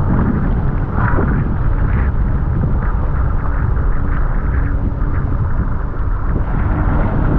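Jet ski engine running steadily under way, heavily buffeted by wind on the microphone.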